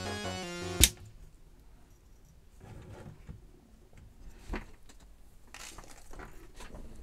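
Background music cuts off with a sharp click about a second in. It is followed by quiet handling sounds: a few light clicks and rustles of snipped wire leads being brushed off a circuit board and side cutters being set down on a cutting mat.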